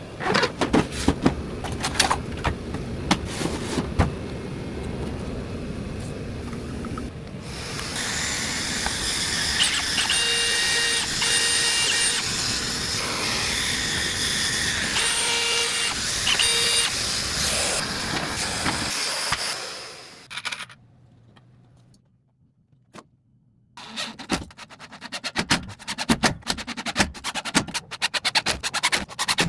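Carpentry work with power tools and handling noise. First come clatter and knocks, then about twelve seconds of a steady hiss with a whine that comes and goes, a brief lull, and then rapid clicking and scraping near the end.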